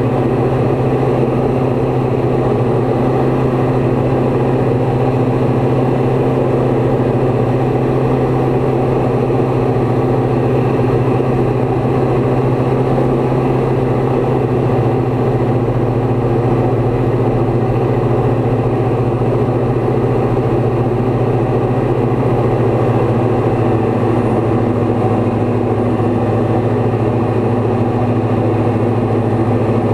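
Light aircraft's piston engine and propeller running steadily in flight: a constant, loud, even hum with a strong low tone.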